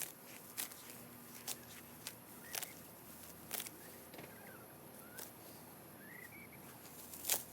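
Crisp rustles and snaps of dry grass and weeds being handled, about one every second, with a few faint short chirps between them.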